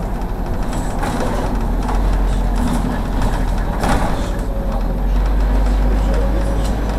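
Regular diesel city bus driving along, heard from inside the cabin: steady engine and road noise with a few knocks and rattles, the strongest about four seconds in.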